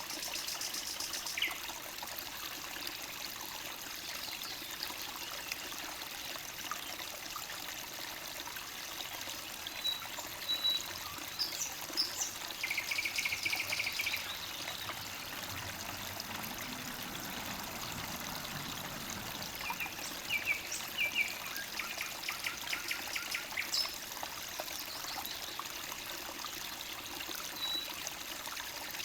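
Forest stream trickling and babbling steadily, with songbirds calling over it: bursts of rapid repeated notes about halfway through and again later, and short single chirps here and there.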